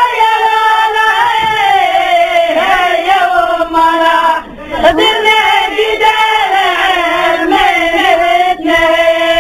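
Singing in long held notes that slide slowly in pitch, with a short break about four and a half seconds in.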